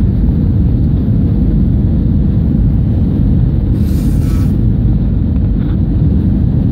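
Steady, loud rumble of engine and airflow noise inside an Airbus A320's cabin on approach with flaps extended, heard at a window seat, with a brief hiss about four seconds in.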